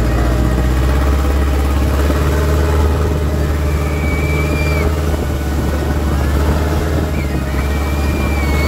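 Boat engine running steadily, a loud low drone, as the boat travels along the river.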